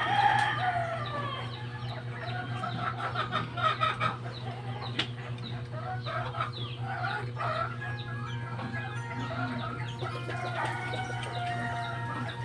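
Free-range chickens clucking in short scattered calls, with a rooster's crow trailing down in pitch in the first second or so. A steady low hum runs underneath.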